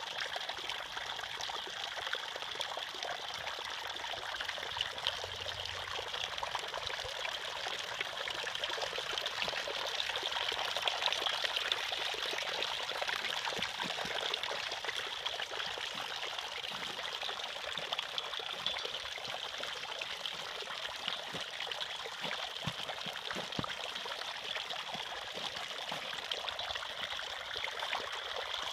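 Steady trickling and splashing of a tiered, green-patinated metal rhubarb-leaf fountain, with water running off the leaf edges in thin streams into the basin below. The sound is an even, bright patter with little low end.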